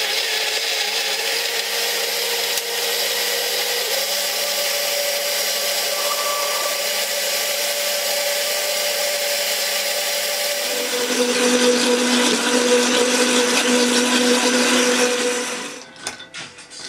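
Countertop electric blender running steadily, puréeing mango chunks, mint leaves and ice in water. About eleven seconds in its motor note changes and grows louder, and it stops near the end.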